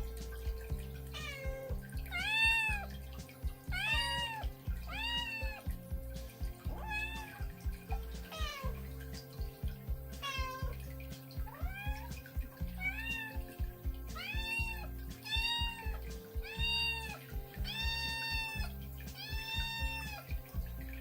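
Kitten meowing insistently, over and over, about one high-pitched meow a second, with the later meows drawn out longer; it is calling out to its owner for attention.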